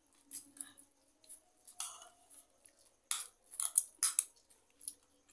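Forks clicking and scraping in plastic bowls while chow mein noodles are slurped and chewed, in quick short bursts, loudest about three to four seconds in.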